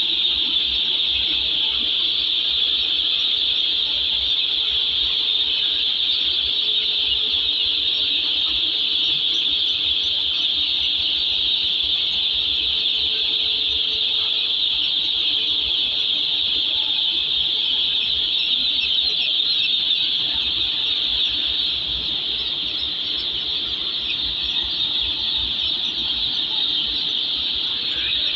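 Thousands of day-old chicks peeping together in their delivery crates: a dense, steady, high-pitched chorus of cheeps.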